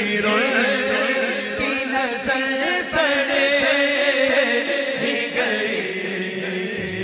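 A man singing a naat, an Urdu devotional poem, into a microphone in long drawn-out phrases with a wavering, ornamented pitch, over a steady low drone.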